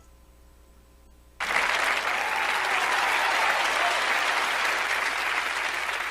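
Applause sound effect: a crowd clapping, cutting in abruptly about a second and a half in after a short quiet gap, then holding steady.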